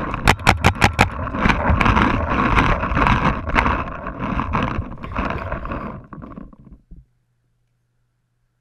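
Rapid paintball fire, about six shots in the first second, followed by a dense, noisy stretch of scuffing and movement with more scattered pops as the player gets behind an inflatable bunker. The sound cuts out abruptly about seven seconds in.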